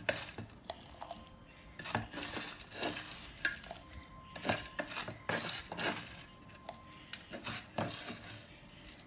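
Fingers scraping and scooping dry, sun-dried grated carrot shreds off a glass dish into a small jar: irregular rustling scrapes with an occasional light knock.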